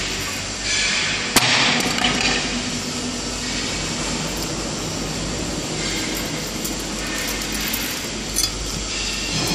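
Cast-iron manhole step struck once, a sharp metallic clink about a second and a half in that rings briefly, with a lighter knock near the end, over steady foundry background noise.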